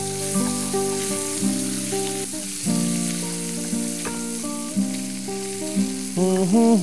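Boneless chicken pieces sizzling as they fry in butter in a pan, stirred with a wooden spatula, over a nylon-string classical guitar being played with plucked notes and chords. A man's singing voice comes in near the end.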